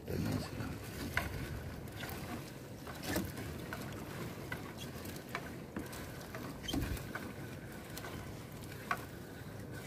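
Sea water splashing and dripping around a small fishing boat as a sinking net is hauled aboard, with a few scattered knocks and taps.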